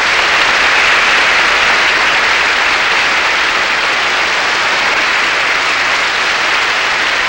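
Audience applauding, a loud, dense and steady clapping.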